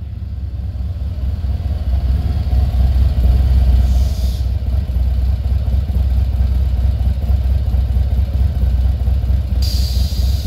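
Harley-Davidson CVO Street Glide's V-twin engine running as the motorcycle rolls in, getting louder over the first couple of seconds, then idling steadily once it stops. A brief hiss sounds about four seconds in and again near the end.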